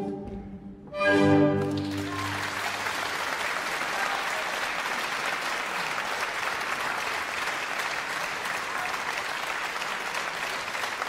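An orchestra's closing chord rings out about a second in, then audience applause follows and carries on steadily.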